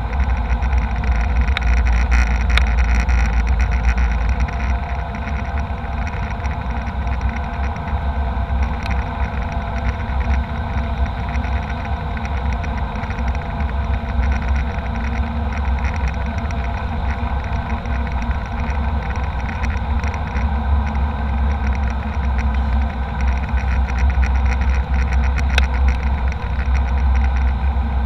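Steady cabin noise of an Embraer E190 jet airliner: a deep, even rumble of turbofan engines and airflow with a faint steady hum over it.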